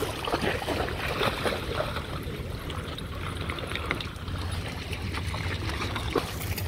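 Shallow seawater sloshing and trickling over pebbles as dogs wade through it, with many small splashes scattered through a steady wash.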